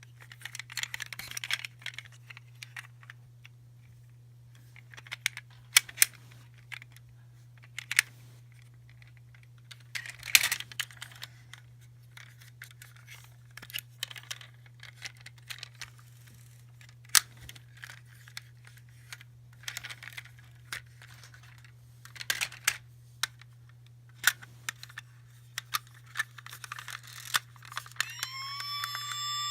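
Plastic toys, eggs and wrappers being handled and opened: scattered clicks and taps with bursts of crinkling and tearing, over a faint steady hum. Near the end an electronic tone with several overtones comes in and wavers.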